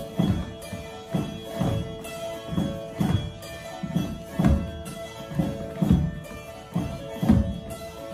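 Langleik, the Norwegian drone zither, playing a springar dance tune over a steady drone. Feet thump regularly on the wooden stage floor, about twice a second.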